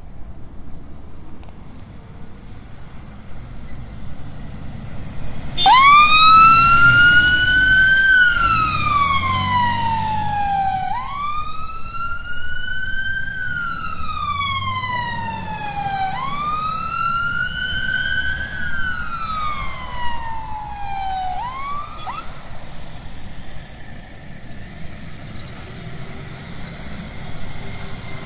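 Volvo FL280 fire engine's siren sounding a wail: a slow rise and fall about every five seconds, starting suddenly about a fifth of the way in, three full cycles, then cut off partway through a fourth rise. Vehicle engine and road noise continue underneath and after it.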